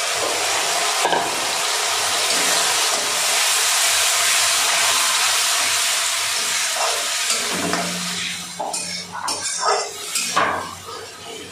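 Tomato and green-chilli purée sizzling as it is poured into hot oil and fried onions in a kadhai. About seven seconds in, the sizzle dies down, and a metal spatula can be heard scraping and clinking against the pan as it is stirred.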